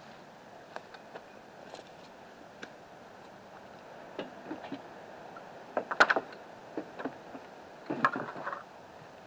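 Handling noise around a wooden chicken coop: scattered light clicks and knocks from the rake and coop woodwork, with a sharper cluster of knocks about six seconds in and another short burst about two seconds later.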